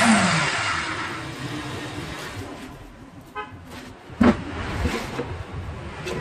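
Homemade table saw's circular-saw motor switched off and winding down: its hum falls in pitch and the blade's whir fades over about three seconds. A brief squeak comes near the middle, then a sharp knock a little over four seconds in and lighter knocks as wood is handled on the table top.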